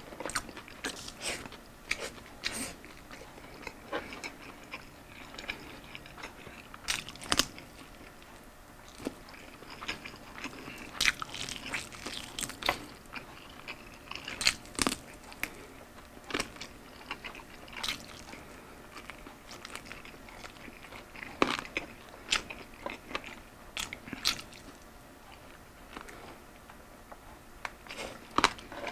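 A person biting and chewing chicken wings, with short, sharp crunches and mouth clicks coming at irregular intervals.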